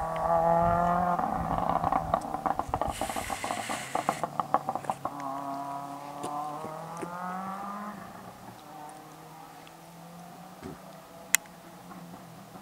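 Turbocharged Subaru Impreza Type R flat-four with a de-catted Blitz Nur Spec R exhaust and anti-lag, revving hard with rapid pops and bangs from the exhaust through the first five seconds and a brief hiss about three seconds in. It then pulls through another rising rev and fades into the distance, with one more sharp bang near the end.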